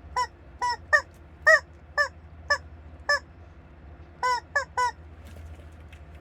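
Squeaky bird-shaped toy giving about ten short, honking squeaks in an uneven rhythm as it is squeezed, with a pause near the middle.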